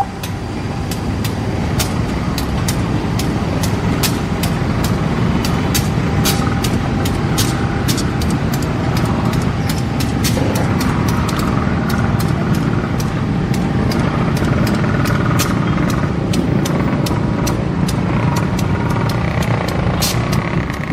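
CC 201 diesel-electric locomotive running steadily as it moves slowly along the station tracks, with frequent sharp clicks throughout.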